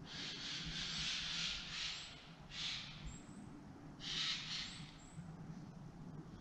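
Bursts of rustling hiss, loudest at the start and again about four seconds in, with a few faint, very high, short chirps now and then.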